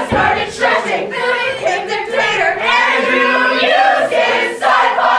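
A group of voices singing together, loosely in unison like a crowd singing along. There is a brief low thump at the very start.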